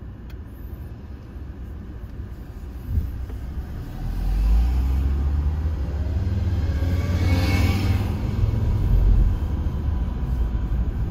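Car engine and road rumble heard from inside the car: quiet while it waits at a red light, then a low rumble swells about four seconds in as it pulls away on the green. A brief hiss rises and fades a little past the middle.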